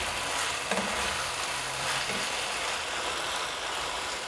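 Chicken pieces in sauce sizzling steadily in a nonstick pan while a wooden spatula stirs them, with light scraping of the spatula on the pan.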